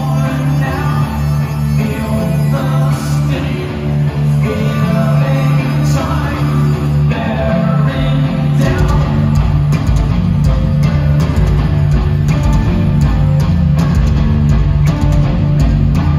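Progressive metal band playing live in an arena, heard from the crowd: heavy guitar and bass with drums. About halfway through, the low end thickens and the drumming comes in harder, with rapid regular hits.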